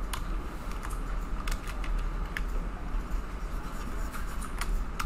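Scattered clicks of computer keyboard keys and a mouse, a few a second, over a steady low hum and hiss.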